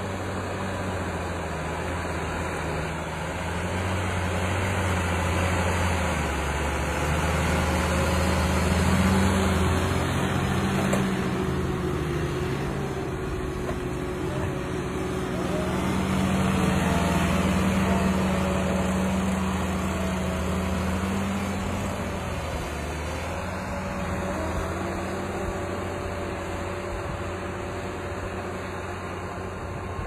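New Holland TM-series tractor's diesel engine running steadily under load while pulling a reversible plough through heavy soil, getting louder for a few seconds twice.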